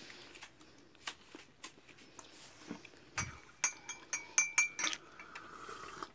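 Cutlery clinking against plates: scattered light taps, then a soft low thump and a quick run of sharp, ringing clinks a little past the middle.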